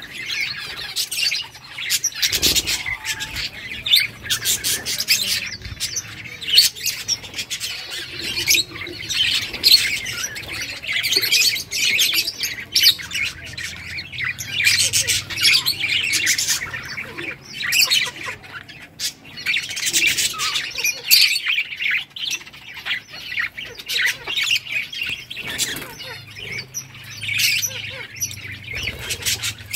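A group of budgerigars chirping and squawking continuously, many calls overlapping.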